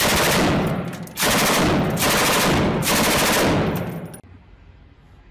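Rapid automatic gunfire in several long back-to-back bursts, each a dense string of shots, stopping abruptly about four seconds in.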